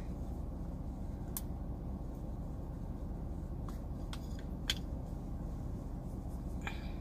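Steady low rumble inside a car's cabin, with a few faint clicks and light scratching as bronzer is picked up and brushed on; the sharpest click comes a little before five seconds in.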